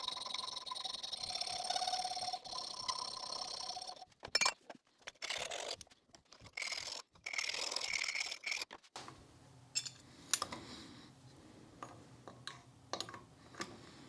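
Hand file rasping across a newly cast gearbox shifter fork clamped in a bench vise, the metal ringing steadily at first, then in separate strokes with short pauses, filing away material where the fork binds. After about nine seconds this gives way to light metal clicks of the gearbox parts being handled over a low hum.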